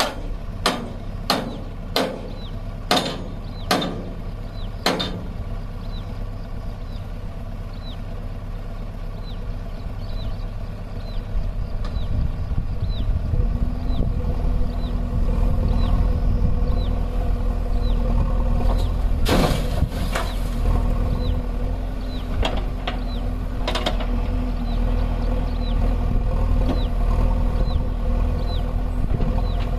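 Diesel engines of a JCB 3DX backhoe loader and a Mahindra Arjun tractor running steadily while the backhoe digs. The engine note strengthens partway through. There are several sharp metal knocks in the first five seconds and a brief rushing burst about two-thirds of the way in.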